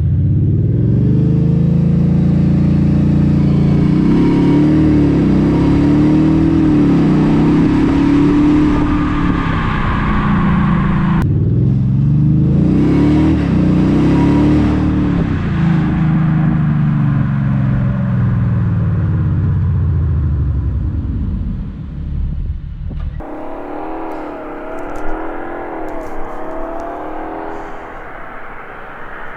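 2020 Audi S7 TDI's stock 3.0-litre V6 turbodiesel accelerating hard, its pitch climbing and dropping back again and again as it shifts up, twice over. About two-thirds of the way through the engine note falls away as the car slows, and then a quieter, higher wavering engine tone takes over.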